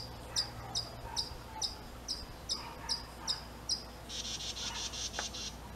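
A cricket chirping steadily, about two or three short high chirps a second, with a brief buzzing trill about four seconds in.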